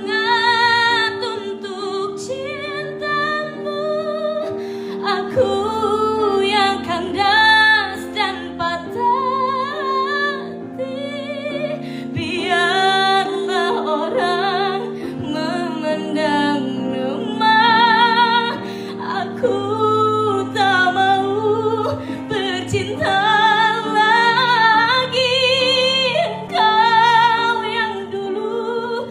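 A woman singing with long held notes and wide vibrato, over steady sustained instrumental accompaniment.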